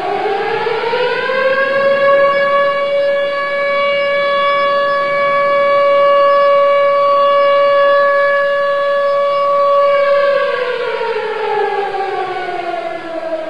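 Civil defense siren sounded for a minute of silence of remembrance. It rises in pitch over about two seconds, holds a steady tone for about eight seconds, then falls away and starts to rise again near the end.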